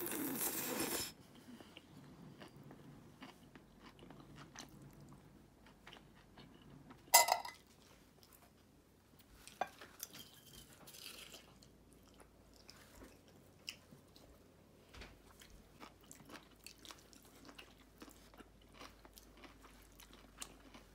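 Close-miked eating of ramen noodles and bean sprouts: a loud noisy slurp right at the start, then chewing with many small crunchy clicks. One sharp knock about seven seconds in.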